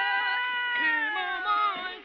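Wordless vocal music from the film's score: several held sung notes, wavering slightly, that slide downward together about a second in.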